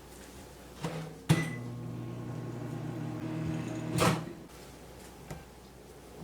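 A click and a sharp knock, then a steady electric hum for about three seconds that cuts off with a clunk.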